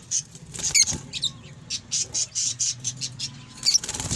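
Small cage birds chirping and squawking, with many short, high calls coming several times a second.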